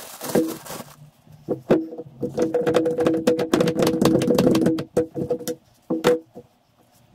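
Grease gun pumping grease into a classic Mini's rear radius arm. It comes as a brief burst, then a run of about three seconds and another short burst, each a rapid clicking over a steady hum.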